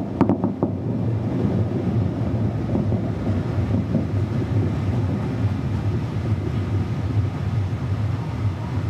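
A few firework bangs right at the start, then a steady low rumbling drone with wind on the microphone.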